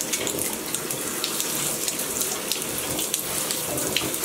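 Water running from a handheld shower sprayer onto a French bulldog and into a bathtub: a steady hiss of spray with small scattered splashes.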